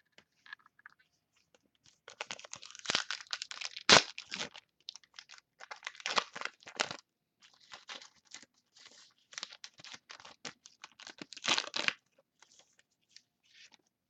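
A trading-card pack wrapper being torn open and crinkled by hand, in irregular bursts of crackling, with one sharp snap about four seconds in.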